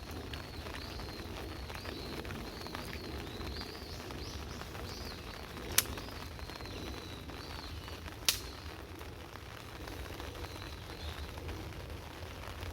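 Rainy campsite ambience: a steady wash of rain and campfire, with two sharp pops from the burning wood about halfway through. A small bird calls over it in a run of quick, high chirps that thin out later on.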